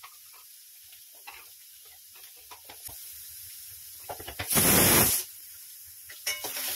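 Onions sizzling quietly in oil in a kadai, with a scatter of small knocks and clicks as carrot pieces are gathered and put into a plastic electric chopper. About four and a half seconds in, a loud rushing noise lasts under a second.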